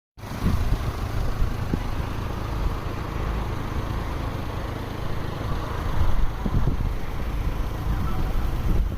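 Strong typhoon wind blowing steadily and buffeting the microphone with a low rumble, a stronger gust about six seconds in.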